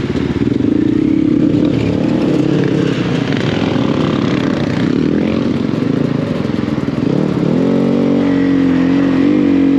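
Enduro motorcycle engine running as the bike rides along, its pitch shifting with the throttle. About three-quarters of the way through it settles to a steadier note.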